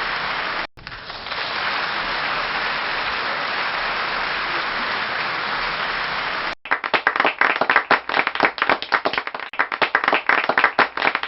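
Dense crowd applause that drops out for a moment under a second in and resumes, then about six and a half seconds in cuts to sparser clapping in which individual claps stand out.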